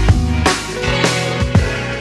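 Background music with a drum beat and bass.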